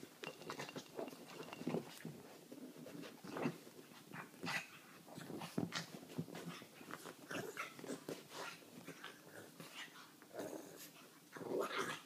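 A pug and a kitten play-fighting on a fabric sofa: the pug's grunting, snuffling breaths mixed with scuffling and pawing on the cushions, in short irregular bursts throughout.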